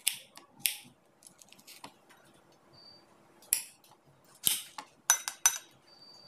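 Kitchen knife slicing strawberries on a plate: a run of sharp, irregular clicks and scrapes as the blade cuts through and taps against the plate.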